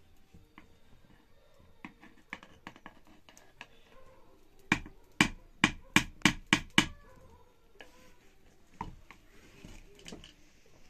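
Light clinks and scrapes of a metal ladle in a pot of cooking rice, then about halfway through a run of seven loud sharp knocks, about three a second.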